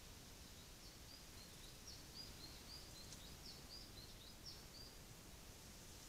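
Faint song of a small songbird: a quick run of about a dozen high chirped notes lasting about four seconds, over a steady background hiss.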